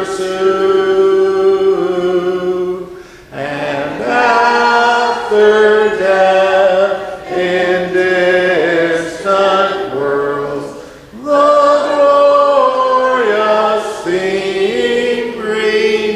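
Congregation singing a hymn, voices holding long notes that step from pitch to pitch, with short breaks between phrases about three and eleven seconds in.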